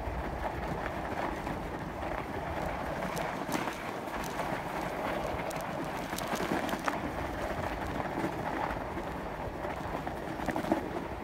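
Fat-tire bike riding over packed snow: a steady rolling noise of the wide tires on the snow, with a few sharp clicks and rattles from the bike now and then.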